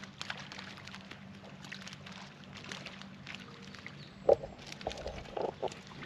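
Small water splashes and plinks, many short ticks scattered through, as fish break the surface of a calm harbor, over a faint steady low hum. A few short louder sounds come between about four and five and a half seconds in.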